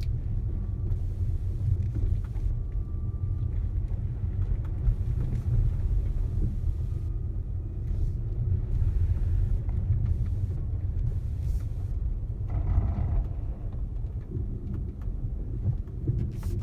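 Steady low rumble of a Tesla Model S P85D's tyres rolling over packed snow, heard from inside the cabin as the car goes down a steep grade.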